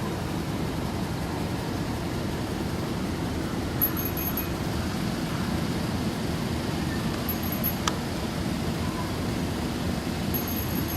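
Steady low background rumble with no clear single source, with a faint short high chirp about every three seconds and one small click near the middle.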